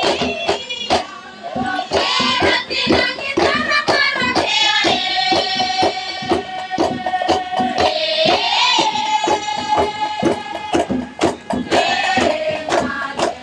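Group singing of a traditional New Ireland dance song over a steady percussion beat of about three strokes a second. The voices hold long notes, one from about four and a half to eight seconds in and another from about nine to eleven seconds in.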